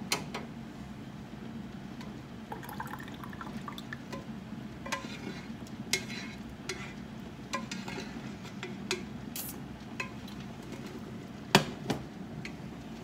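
Wooden spoon scraping the last thick tomato sauce out of a metal pot into a canning funnel on a glass jar: scattered light scrapes and knocks, with one louder clunk near the end as the pot is set down. A steady low hum runs underneath.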